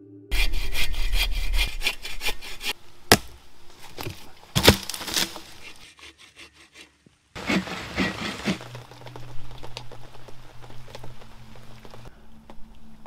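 Bow saw cutting through a log in rasping strokes, with sharp wooden knocks about three and five seconds in and a brief silence just past the middle.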